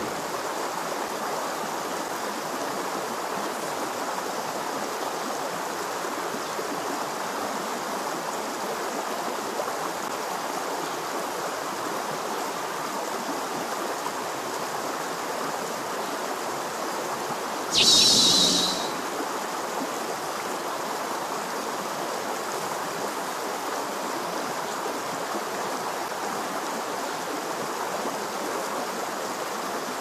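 Mountain stream flowing steadily over rocks. About two-thirds of the way in, a short, sharp, high-pitched sound lasts about a second and is briefly louder than the water.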